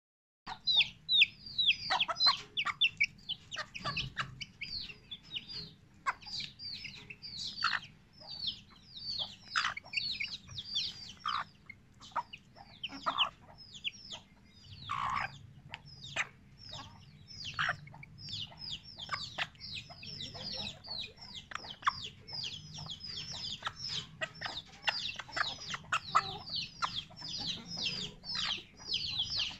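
Aseel chick peeping: a steady run of short, high calls, each falling sharply in pitch, several every second. The chick is a sick one being treated.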